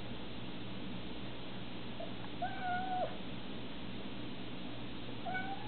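Siamese-type cat meowing twice: a longer meow about two and a half seconds in that holds its pitch and then drops at the end, and a shorter one near the end.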